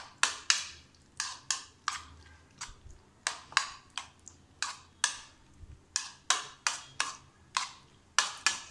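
Metal spoon knocking against a bowl while stirring raw eggs into a chunky potato and onion mixture: sharp, irregular clicks, about three a second.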